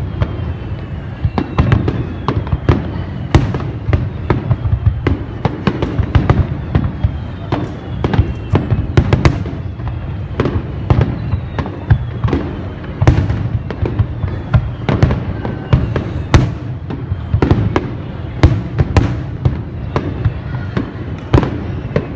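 Aerial fireworks shells bursting in rapid succession: a dense run of sharp bangs and crackles, several a second, over a continuous low rumble, with faint falling whistles between the bursts.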